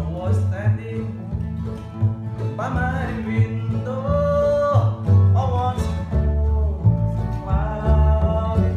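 Acoustic bluegrass band playing live: resonator guitar played lap-style with a steel bar, mandolin and strummed acoustic guitar, with a lead vocal singing in short phrases over them.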